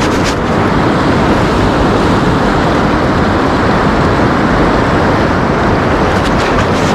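Creek water rushing in a loud, steady wash, with wind buffeting the microphone.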